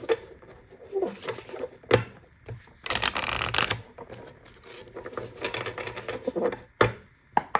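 Gentle Creatures oracle cards being shuffled and handled by hand: papery card rustles and slaps, with a denser run of shuffling about three seconds in and a few sharp card taps later.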